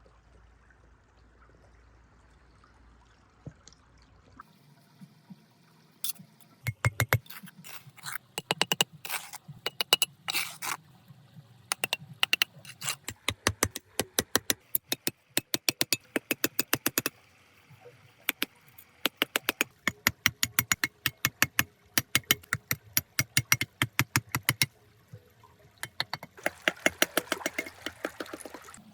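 Rapid runs of sharp clicks and taps, several a second, starting about six seconds in and going on in bursts with short pauses. Before them there is only a faint low hum.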